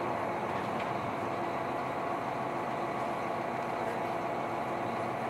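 Steady running noise of a KiHa 261 series diesel limited express train heard from inside the passenger car as it moves slowly out of the station, the diesel engine and wheels giving an even hum.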